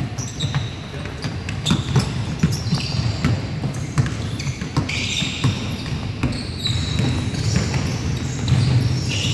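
Basketball bouncing and dribbling on a hardwood gym floor, mixed with repeated short, high sneaker squeaks from players cutting on the court.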